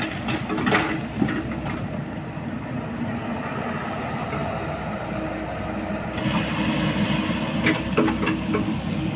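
Diesel engine of heavy earthmoving equipment running steadily while spreading road stone, with a few sharp knocks. About six seconds in, a thin high whine and a quicker low pulsing join the engine sound.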